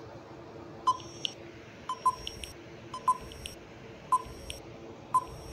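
Quiz countdown-timer sound effect: a short click-beep about once a second, five times, over a faint steady hum.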